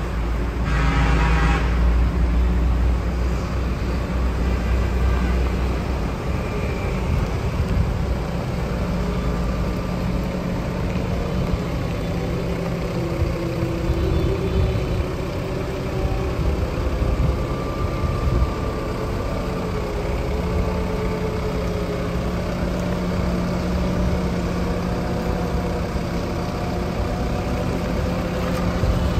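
Excavator's diesel engine running steadily, its pitch drifting a little as the hydraulics work, with a brief horn toot about a second in.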